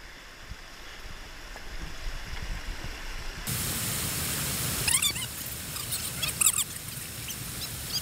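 River whitewater rushing. The rush comes in suddenly, much louder, about three and a half seconds in after a quieter stretch, and a few short high calls sound over it about five and six and a half seconds in.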